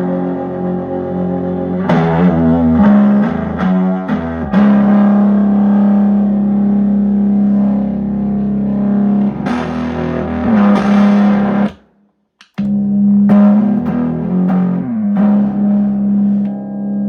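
Guild X-79 Skyhawk electric guitar played through a Maniac MVB1000 amplifier: long held notes and changing chords, cutting out briefly about twelve seconds in before the playing resumes.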